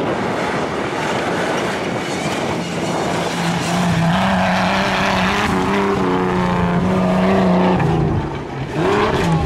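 Race vehicle's engine running hard on a dirt track, its pitch stepping up and down several times as the throttle is worked. It eases off briefly near the end.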